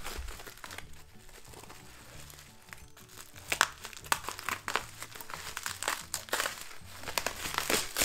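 Bubble wrap crinkling and crackling as it is handled and unwrapped, the crackles coming thick from about three and a half seconds in, over soft background music.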